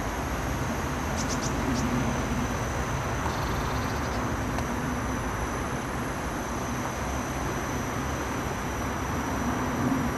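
Battery-powered radio-controlled model helicopter flying overhead: a steady rotor hum with a thin, high motor whine held throughout.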